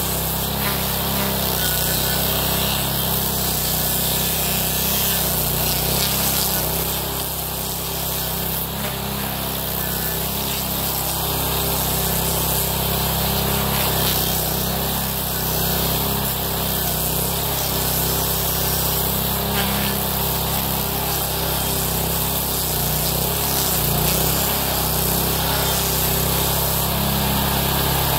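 A homemade stump grinder at work: its Honda GX390 single-cylinder engine runs steadily under load, driving an M1 Blueshark toothed wheel that chews into a hardwood stump, with a continuous hiss of wood chips spraying off the wheel.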